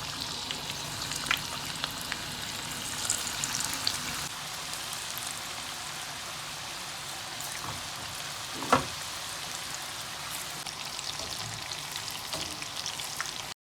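Chicken pakoras in gram-flour batter deep-frying in hot oil: a steady sizzle with scattered crackles and pops, and one sharp knock about nine seconds in.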